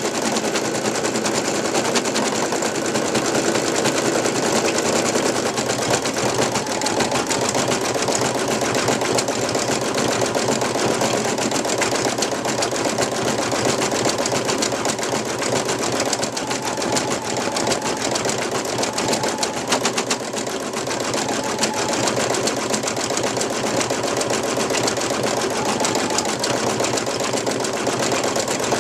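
Brother NV2600 computerized embroidery machine stitching at speed while filling in a black section of a design: a steady, rapid clatter of needle strokes.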